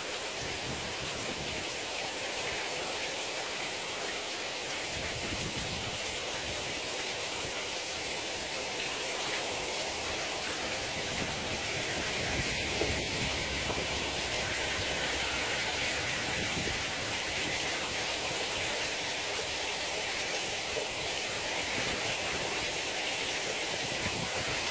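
Torrential cloudburst rain pouring onto a street, a dense, steady hiss of rain.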